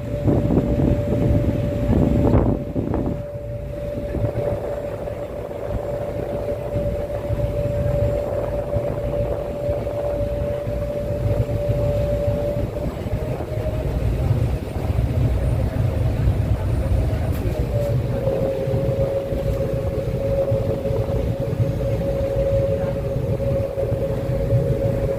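A public transport vehicle running: a steady low rumble with a constant whine over it that drops slightly in pitch about eighteen seconds in.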